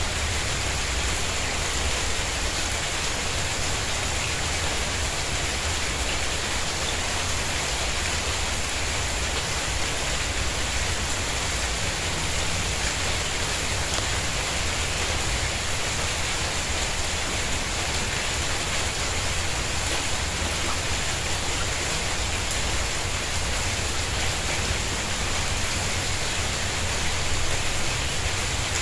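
Steady rain falling on a tiled courtyard and garden plants, an even hiss with a low rumble beneath it.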